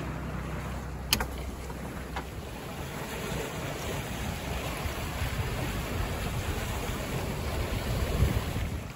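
Wind buffeting the microphone over the rush and splash of choppy water along a sailboat's hull while it sails, with a sharp click about a second in.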